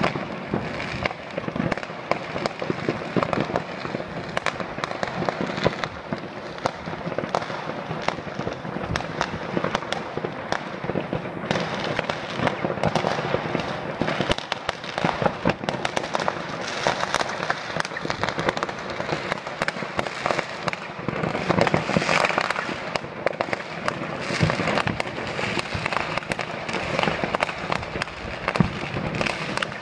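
Fireworks and firecrackers set off by residents all over a city at once: a dense, unbroken crackle of many overlapping bangs and pops.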